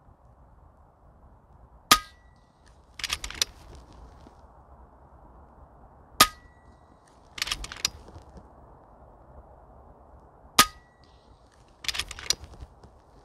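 Three shots from a .22 FX Impact MK2 PCP air rifle, about four seconds apart, each a sharp crack with a brief metallic ring. About a second after each shot come two quick clicks as the side lever is worked back and forth to chamber the next round.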